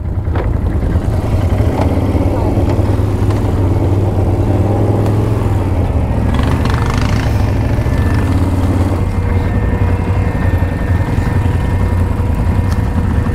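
ATV engine running steadily while riding on a trail, a low continuous drone. A faint steady whine joins about nine seconds in.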